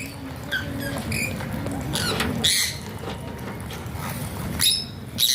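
Alexandrine parakeet giving a string of short, high chirps and squawks. The loudest bursts come about two and a half seconds in and again near the end.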